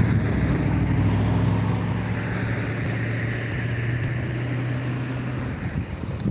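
A steady engine hum with a rushing noise that swells in the middle and fades out about five and a half seconds in.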